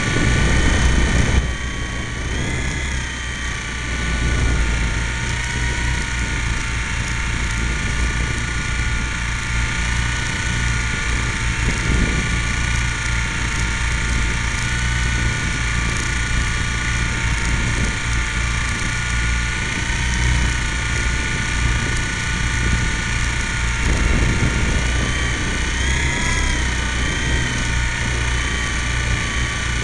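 Radio-controlled model helicopter in flight, heard through a camera mounted on it: a steady high whine from its motor and gears over a low rumble of rotor wash. The pitch wavers briefly about 26 seconds in.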